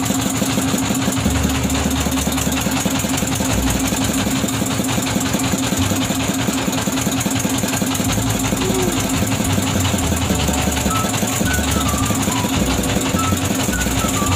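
Boat engine running steadily, with a rapid, even knocking beat.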